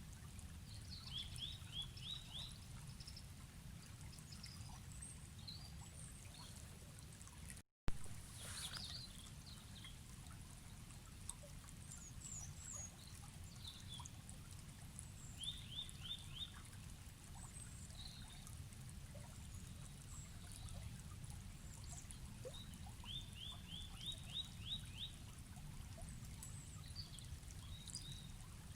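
River flowing steadily in a low, even rush, with birds chirping over it, including three runs of five or six quick repeated notes. A brief dropout and a sharp click about eight seconds in.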